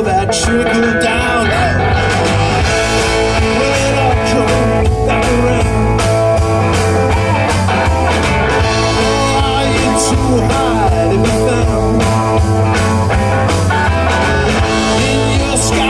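A live blues-rock band playing an instrumental stretch of a song, with electric guitars, bass and drum kit and no vocals; the pitched lines bend up and down throughout.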